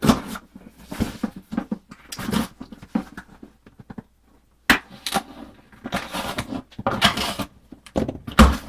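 A cardboard box being handled and opened: scattered knocks, scrapes and stretches of rustling, with a louder thump near the end.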